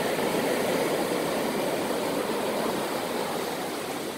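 Ocean surf washing up over wet sand, a steady rushing noise.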